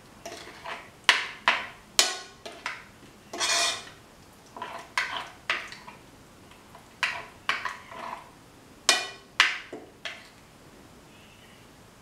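Irregular clinks and scrapes against a bowl as a thick spice paste is mixed in it, with one longer scrape about three and a half seconds in, then quieter for the last couple of seconds.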